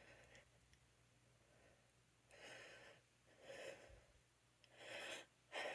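A woman's audible breathing while a sneeze builds: after a near-silent start, a series of about four short, breathy gasping intakes, each louder than the last, the loudest right at the end as the sneeze comes on.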